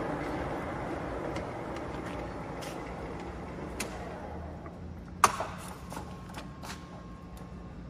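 Timemaster engine lathe's spindle and gearing running at speed, the steady running noise fading as it slows. A sharp click comes about five seconds in, with a few lighter clicks around it.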